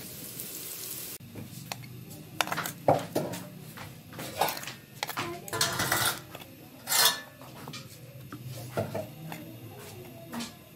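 A metal fork scraping and clinking against a steel frying pan as fried potato slices are lifted out onto a plate, in irregular sharp clinks and scrapes. A frying sizzle cuts off suddenly about a second in.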